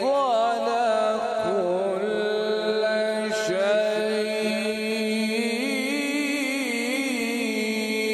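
A male qari reciting the Quran in a melodic tilawat style into a microphone: one voice with quick wavering ornaments at first, then long held, slowly bending notes.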